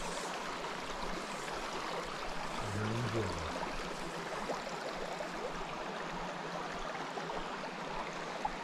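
Small rocky creek running: a steady babble of water over stones, with a brief low vocal sound about three seconds in.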